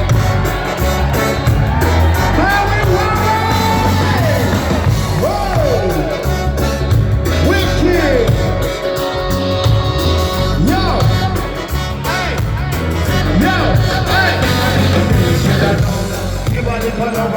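Live band playing loud amplified music with a heavy bass line and singing.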